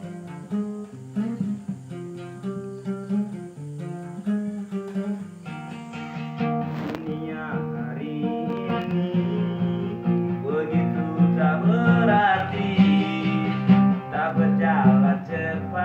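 Acoustic guitar being played: single picked notes at first, then fuller and louder playing from about six seconds in.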